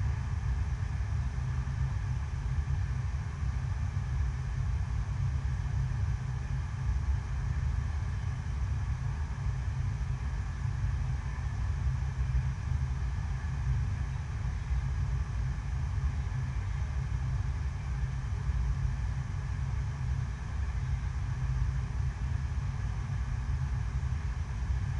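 Artificial sheet-wave surf simulator running: a thin sheet of pumped water rushing up the ramp makes a steady low rumble with a faint hiss above it.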